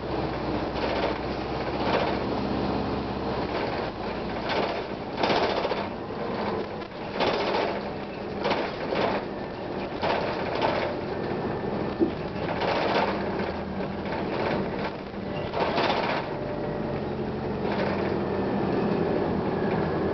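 Interior ride noise of a 1999 Gillig Phantom transit bus with its Detroit Diesel Series 50 engine running. Frequent short rattles break the steady noise, and the low engine hum fades about four seconds in and returns near the end.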